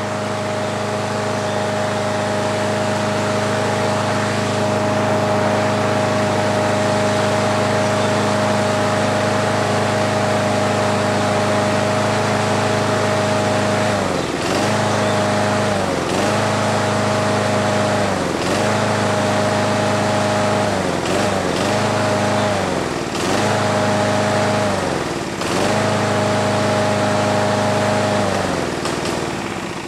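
Briggs & Stratton single-cylinder push lawn mower engine running steadily, then bogging down and picking back up again and again as it is pushed through grass. Near the end its note sags and fades as the engine quits.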